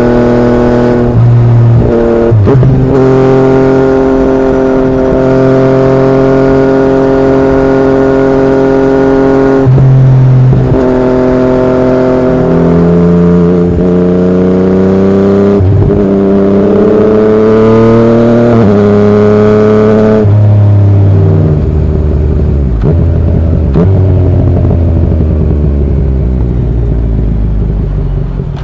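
Yamaha MT-09's three-cylinder engine through an Akrapovic exhaust, heard from the rider's seat. It holds steady revs, then climbs in pitch in rising steps through the middle as the bike accelerates through the gears, and winds down steadily in the last third as the bike slows.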